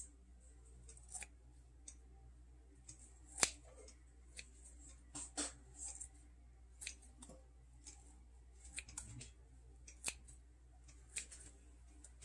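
Irregular sharp clicks and snips, roughly one or two a second, the loudest about three and a half seconds in, over a low steady hum: hands working with kitchen tools while preparing food.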